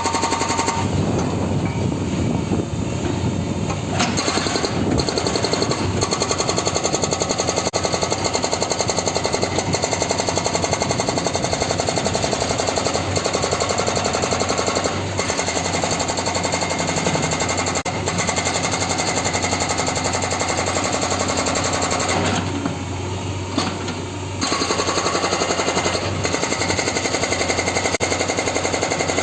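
Hydraulic rock breaker on a JCB 3DX backhoe loader hammering in a rapid, continuous series of blows, with the machine's engine running underneath. The hammering stops for about two seconds roughly three-quarters of the way through, then resumes.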